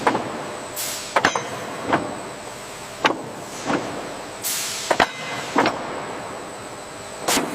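Automated production-line machinery running, with sharp metallic clanks about once a second and three short hisses of compressed air.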